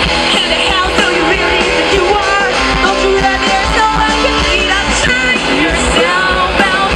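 Loud pop-rock music with a singing voice over guitar and a steady beat.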